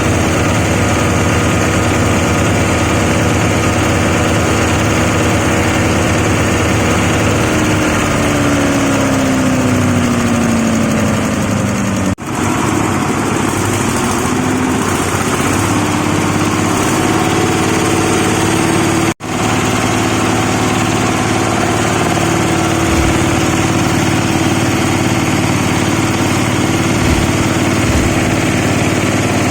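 Rice husk grinding mill running with a steady engine-like drone. Its pitch sags for a few seconds partway through, then climbs back. The sound cuts out suddenly for an instant twice.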